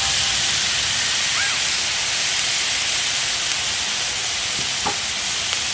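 Diced ham sizzling on a hot Blackstone flat-top griddle: a steady frying hiss.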